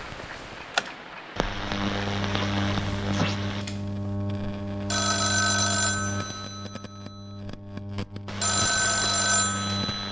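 A black rotary-dial telephone's bell rings twice, each ring about a second long, the first near the middle and the second near the end. Under it, a low steady hum starts after a click about a second in.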